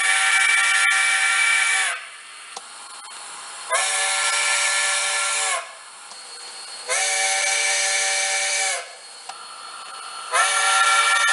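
Model-railway DCC sound decoder playing a steam-locomotive chord whistle through a small mobile-device 'sugar cube' speaker: four blasts of about two seconds each, with a steady steam hiss between them. The last blast is still sounding at the end.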